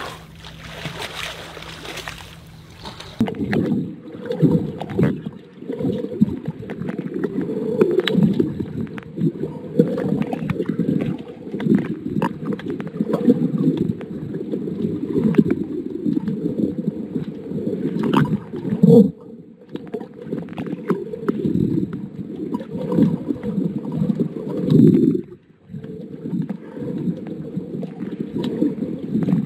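Water sloshing and gurgling, heard muffled by a camera under water, with nearly all the sound low and dull. A higher splashing hiss in the first few seconds gives way to it about three seconds in, and it briefly drops away near the end.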